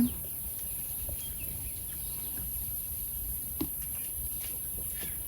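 Outdoor ambience: a steady high-pitched hiss with a low rumble underneath, a few faint ticks, and one short knock about three and a half seconds in.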